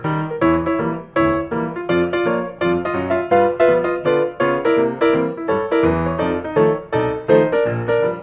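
Background music: a light, bouncy piano tune with a steady run of notes.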